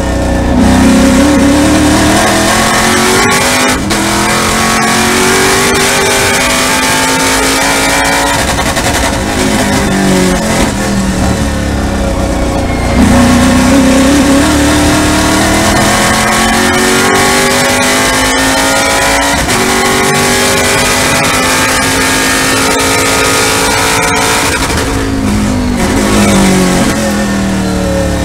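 TA2 race car's V8 engine heard from inside the cockpit at racing speed. The engine note climbs under acceleration at the start, falls away in the middle as the car slows for a corner, climbs again from about halfway, then drops once more near the end.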